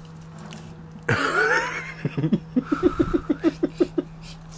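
A person laughing in a quick run of short, even bursts, about five a second, after a wavering vocal sound about a second in.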